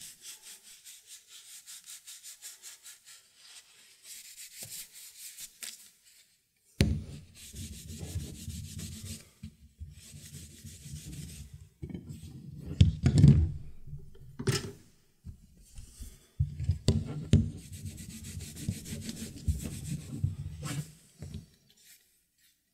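A cloth rag rubbed over a wooden hiking stick in quick, even back-and-forth strokes. After about seven seconds it gives way to low handling rumble and several knocks and thumps as the wooden stick is moved about and turned over.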